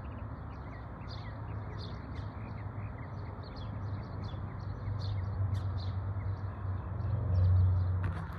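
Small birds chirping over and over, with short quick calls and little falling notes, over a low rumble that swells to its loudest about seven seconds in, then fades.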